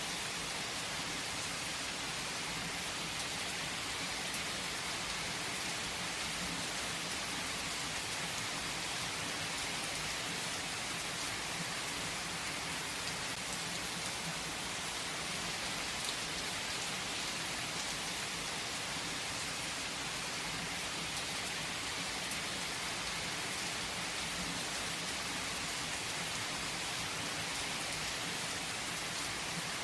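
Heavy rain falling on tree foliage, a steady dense hiss with scattered drop ticks.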